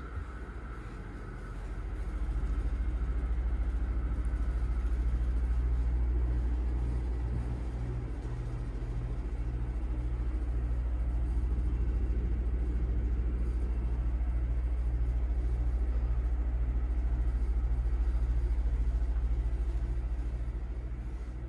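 A heavy machine's low steady rumble that swells about two seconds in and eases near the end, with a regular throb about twice a second.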